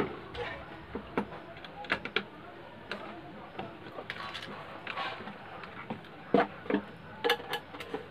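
Irregular clicks and knocks of wire connectors and the plastic chassis being handled and pushed onto a CRT TV's circuit board, with a few louder knocks near the end.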